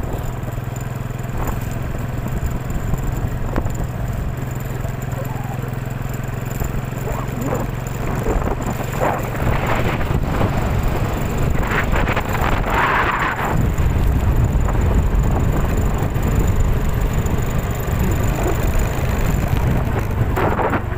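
Typhoon wind buffeting the microphone: a heavy, continuous low rumble that grows louder about two-thirds of the way through, with a few short higher-pitched noises in the middle.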